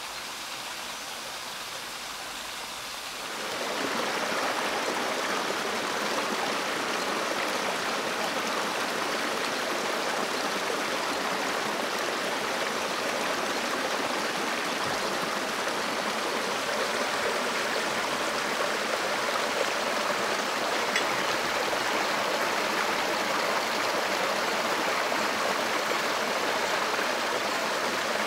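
Running water of a stream, a steady rushing that grows louder about three seconds in.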